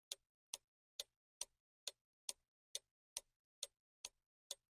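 Countdown timer ticking like a clock, one short, even tick a little more than twice a second, counting down the time left to answer the question.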